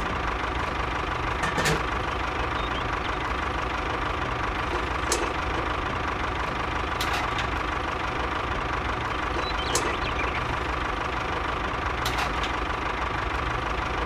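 Steady engine idling drone with a faint steady whine, and several short sharp clicks as small plastic toy parts are set down and handled.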